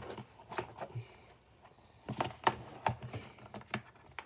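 Small items and packaging being handled: a handful of light, irregular clicks and taps with some rustling.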